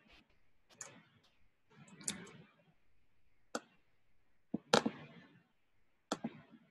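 Computer keyboard keys and mouse being tapped: about seven separate clicks spaced irregularly, the loudest a little under five seconds in.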